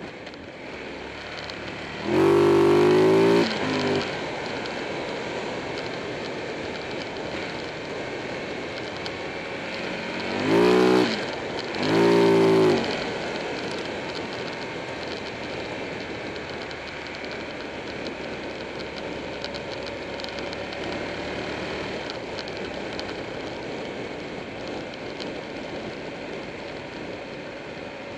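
Buell 1125R's V-twin engine running under steady wind and road noise, revving up sharply three times: once about two seconds in, then twice in quick succession around ten to twelve seconds in.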